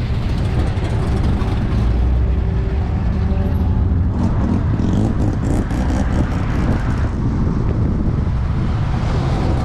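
Car engine running with a steady deep low rumble, typical of a big-engined classic or muscle car.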